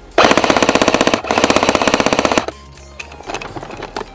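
Airsoft electric rifle firing two rapid full-auto bursts close by, each about a second long, with a brief break between them.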